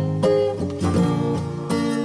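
Instrumental passage of a pop song with strummed acoustic guitar chords and no singing.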